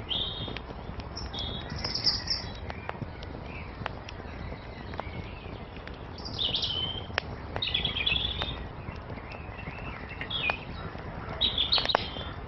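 Wood fire crackling with sharp pops from the burning logs, while small birds chirp in several short, high phrases over it.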